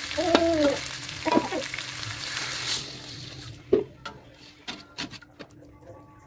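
Chicken and green chili paste sizzling in a wok while a metal spatula stirs, with scraping clicks. The sizzle dies away about three seconds in, once water has been added, leaving scattered spatula knocks against the pan, the sharpest about four seconds in.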